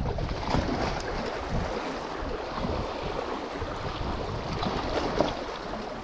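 Wind gusting across the microphone, over the wash of choppy sea against shore rocks.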